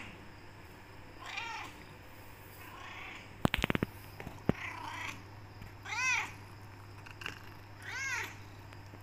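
A tortoiseshell Persian cat meowing repeatedly, about five short meows that each rise and fall in pitch, demanding to be let out of the room. Near the middle comes a quick cluster of sharp clicks, the loudest sound here.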